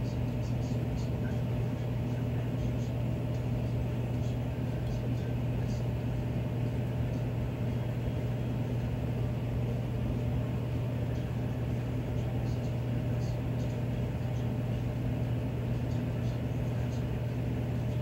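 Miller E2 furnace running in cooling mode: its blower running steadily with a low hum and a wash of air noise, with a few faint scattered ticks.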